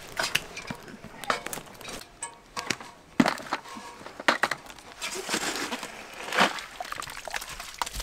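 Irregular crackles, scrapes and clicks of wet, spongy soil and dead twigs being dug out and handled in a plastic bucket.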